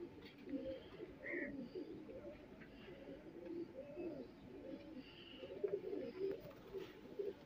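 Several domestic pigeons cooing over one another.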